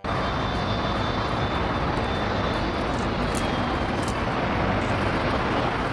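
Airbus A380 coming in to land: steady jet noise from its four turbofan engines, with a faint high whine that slowly falls in pitch.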